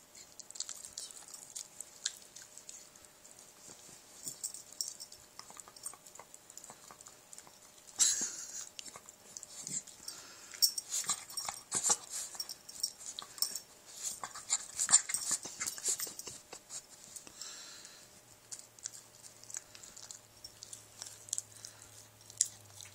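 Dachshund chewing and gnawing at her own ear: a run of short clicking mouth sounds, sparse at first, then busiest and loudest for several seconds in the middle before thinning out.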